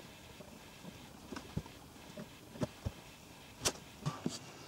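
Faint handling sounds from a hand working at a plastic jet-pump housing set in a boat hull: scattered light taps and clicks at irregular intervals. The sharpest comes a little after halfway, with a few more near the end.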